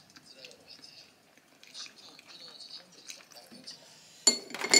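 Quiet small clicks and handling noises, then near the end a loud crackling and crinkling as a clear plastic takeout sushi container lid is handled and pressed shut.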